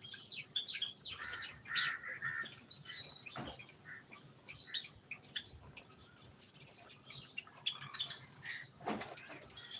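Pet birds chirping busily, many short, quick chirps overlapping as from several birds. There is a brief rustle near the end.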